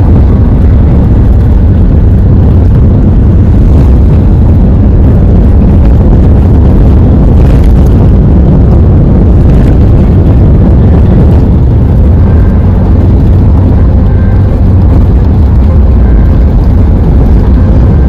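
Steady, loud low rumble of a vehicle driving at speed along the road: road and wind noise.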